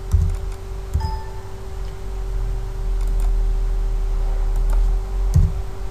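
Steady electrical hum with low rumble from a desk microphone, broken by a few dull knocks and faint clicks from someone working a computer keyboard and mouse.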